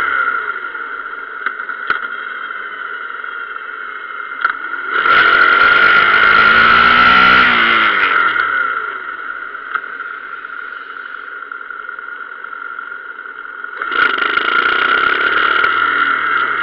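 Motorcycle engine running on the road: it picks up loudly about five seconds in, the revs fall away again around eight seconds, and it picks up once more near the end, with wind rushing over the microphone during the louder stretches.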